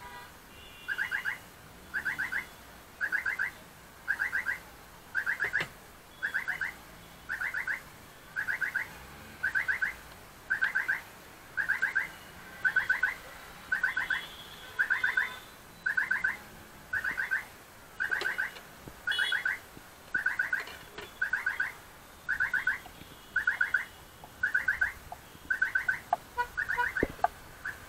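A loud, high warbling chirp repeated at an even pace, about three every two seconds, with a few sharp clicks near the end.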